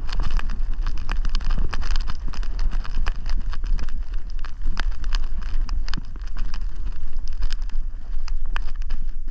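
Wind buffeting the microphone in a steady low rumble, with irregular crunching footsteps on a rocky hill path.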